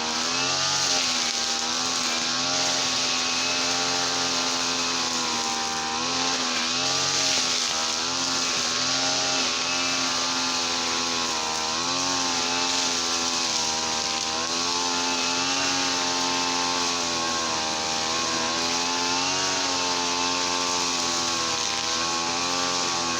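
Small petrol engine of a garden machine running fast and steadily, its pitch wavering slightly up and down as the load or throttle changes.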